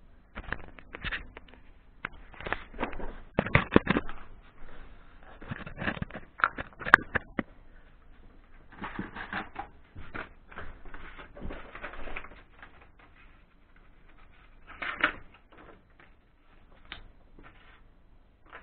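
Handling noises: irregular clicks, knocks and rustles as a utility knife is fetched and taken out of its plastic packaging, with a sharp click about seven seconds in.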